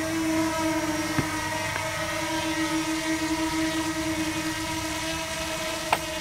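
Quadcopter drone flying overhead, its propellers giving a steady hum that holds one pitch, with two short clicks, one about a second in and one near the end.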